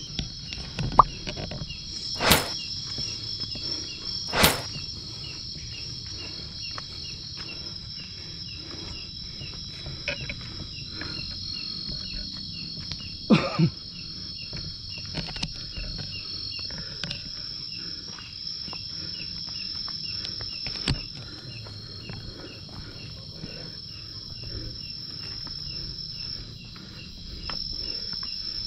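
A night insect chorus trills steadily, a high-pitched drone with a fast, regular chirp running under it, while footsteps scuff along a dirt trail. A few sharp knocks and clicks cut through, the loudest about two, four and thirteen seconds in.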